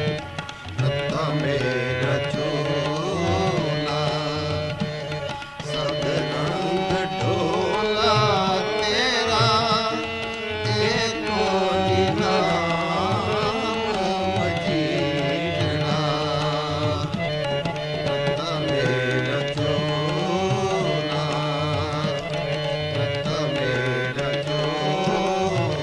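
Sikh kirtan: harmonium with a tabla rhythm, and a voice singing a wavering, ornamented melody.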